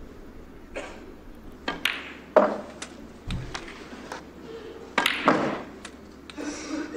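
Snooker balls clicking: the cue tip striking the cue ball and balls knocking together, a string of short sharp clicks over a quiet hall, the loudest about two and a half seconds in.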